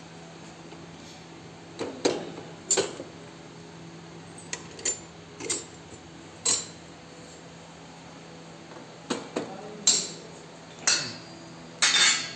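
Scattered sharp metallic clinks and knocks, about a dozen, with a longer clatter near the end, as steel pipes, clamps and spanners are handled while a manual seed drill is assembled.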